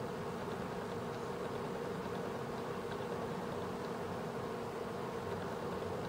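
Five-blade ceiling fan running steadily: an even whir of moving air with a constant buzzing hum from the motor.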